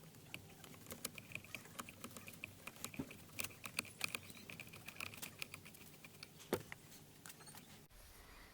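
Light, irregular clicks and scratches of a Phillips screwdriver working two small screws out of the plastic steering column trim, with faint high ticking through the middle.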